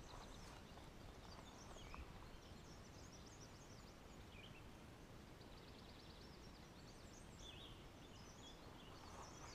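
Near silence: faint outdoor ambience with faint, scattered bird chirps.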